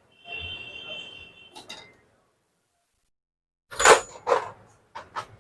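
Metal parts and hand tools being handled while a bolt is fitted to a Honda Activa engine: a faint steady high whine for the first second and a half, a couple of light clicks, then after a pause four sharp metallic clinks near the end.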